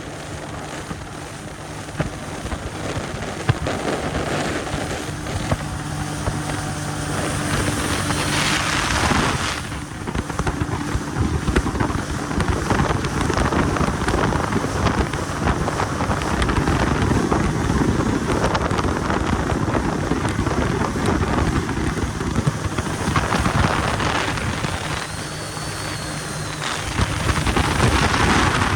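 Yamaha jet ski engine running under way, with wind buffeting the microphone and water noise. A steady engine hum is clearest for the first nine seconds; after that, wind and spray noise cover most of it.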